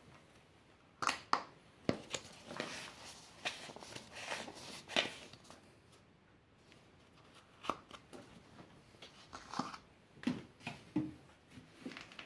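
Scattered light clicks, knocks and rustling from handling a plastic funnel and oil bottle at the engine's oil filler, as the funnel is lifted out and set back in.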